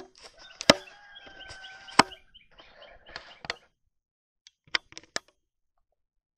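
Sharp knocks and clicks of the camera being handled: two loud knocks about two-thirds of a second and two seconds in, and a few lighter clicks later. Between the two loud knocks, a steady pitched call is held for about a second.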